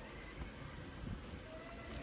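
Small plastic building-brick pieces handled on a wooden table, with one sharp click near the end over a low background hiss.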